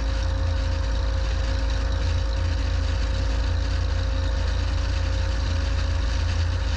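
Van's RV-10's piston engine idling steadily on the ground: a deep, even rumble with a faint steady hum above it.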